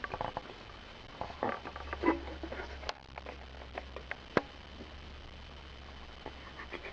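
Scattered light taps, clicks and scuffles at irregular intervals, busiest between about one and a half and two and a half seconds in, with one sharp click a little after four seconds.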